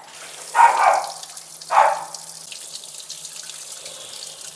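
Tap water running steadily into a sink, with two short louder splashes about a second in and just before two seconds: water being splashed on the face to rinse chili powder out of burning eyes.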